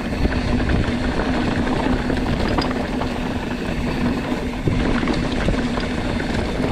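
Mountain bike rolling down a rocky downhill trail: a low rumble of wind on the microphone with a steady buzz underneath, and scattered clicks and rattles as the tyres and bike go over rock.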